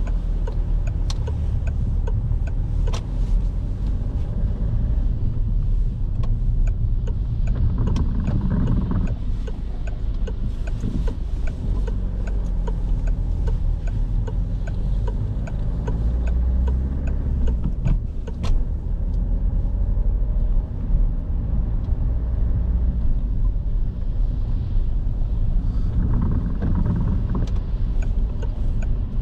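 Car being driven, with a steady low engine and road rumble heard from inside the cabin and scattered faint clicks over it.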